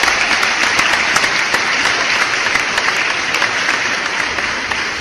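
Audience clapping, a dense patter of many hands that slowly dies down.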